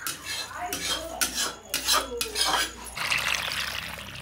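Short clinks and clatters of metal utensils, then from about three seconds in, water poured from a jug into a steel bowl of cut gourd pieces.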